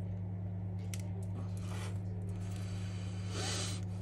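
Steady low electrical hum, with faint clicks and soft rustling as a phone and a precision screwdriver are handled on a foam mat; the loudest rustle comes about three and a half seconds in, as the phone is picked up.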